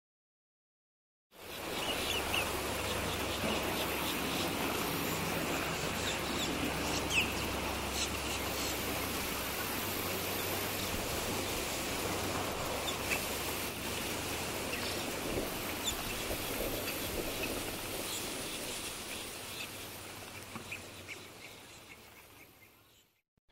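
Outdoor ambience: a steady background hiss with scattered bird chirps, starting after about a second of silence and fading out near the end.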